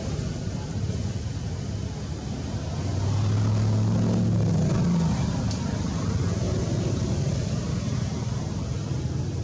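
Steady low outdoor rumble, with a motor's hum swelling about three seconds in and fading about two seconds later.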